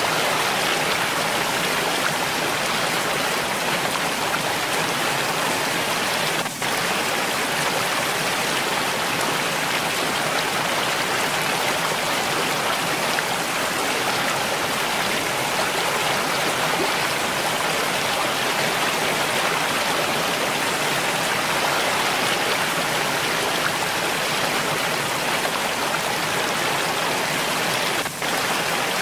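Mountain stream running steadily, an even wash of flowing water, with two very brief dips in level, about six and a half seconds in and near the end.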